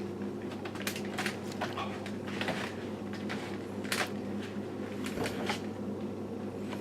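A steady low hum from room equipment, with several short soft clicks and rustles scattered through, the sound of things being handled.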